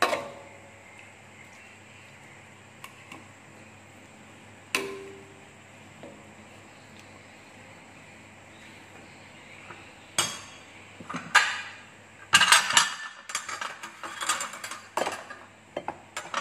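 Spatula knocking against a wok while stirring a fish stew: a single knock at the start and another about five seconds in, then a busy run of knocks and scrapes over the last six seconds.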